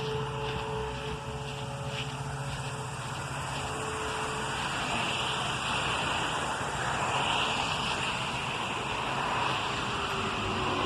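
Cars passing on a nearby road, their tyre and engine noise swelling from about halfway through and loudest near the end. Under it, a distant outdoor tornado warning siren holds a faint steady tone in the first few seconds.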